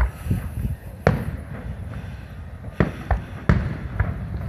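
Aerial firework shells bursting overhead: about half a dozen sharp bangs, the loudest about a second in and about three and a half seconds in, over a steady low rumble.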